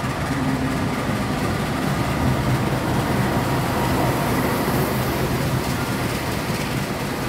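Diesel locomotive of a passenger express pulling into a covered station platform and passing close by, with a steady low engine hum, then the coaches rolling past.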